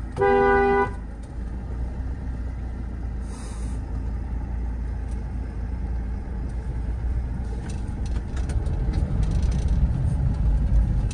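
A car horn gives one short toot just after the start, over the steady low rumble of a car driving slowly.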